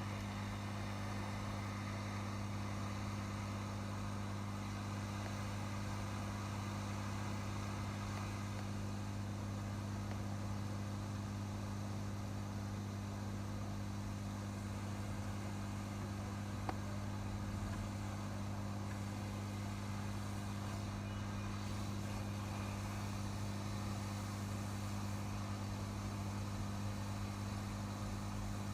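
A low, steady electrical hum with an even hiss over it, unchanging throughout, with one faint click about 17 seconds in.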